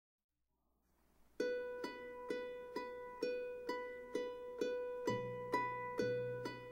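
Background music: plucked-string notes at an even pace, a little over two a second, starting about a second and a half in. A low bass part joins about five seconds in.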